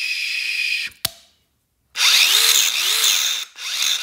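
Power drill running in short runs: a steady whine that stops with a click about a second in. After a brief pause it runs again, its pitch rising and falling twice, then in shorter bursts.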